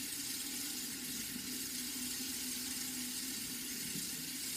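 Running tap water, a steady even hiss with a low steady hum underneath, as the dog is wetted down for her bath.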